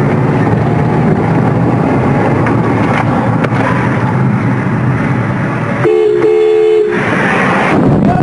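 Steady engine and road noise inside a moving car, broken about six seconds in by one car-horn honk lasting about a second.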